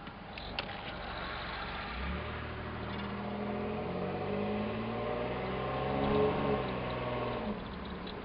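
1992 Chevy Camaro RS's V6 engine accelerating, heard from inside the cabin. The engine note rises from about two seconds in, is loudest around six seconds, then falls back near the end.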